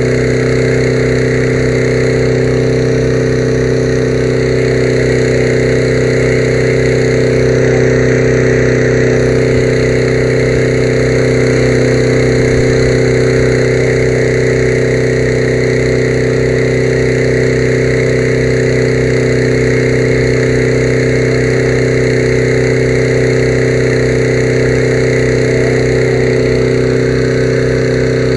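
An engine running at one steady speed: a loud, constant drone that never changes in pitch.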